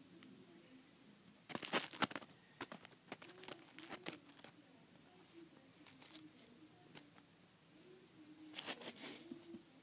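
Crinkling, rustling noise in two short bursts, about one and a half seconds in and again near the end, with scattered small clicks and rustles between them.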